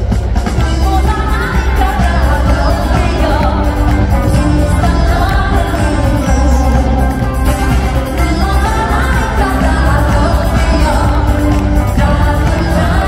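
Live pop music: a singer backed by a band, with heavy bass, heard from the audience in a large arena hall.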